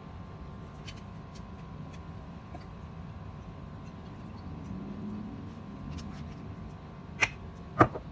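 Two sharp knocks about half a second apart near the end, from a glass Worcestershire sauce bottle being handled and put away while a steak is seasoned, over a steady low hum with a few faint clicks.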